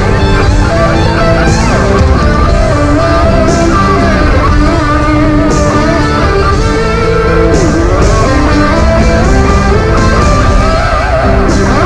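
Rock music led by electric guitar, with bending lead notes over a steady backing and a short burst of high hiss about every two seconds.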